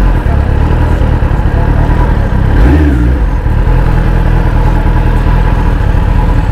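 Kawasaki ZX-10R's inline-four engine running at low revs as the bike rolls off slowly, with a brief rise in revs about three seconds in.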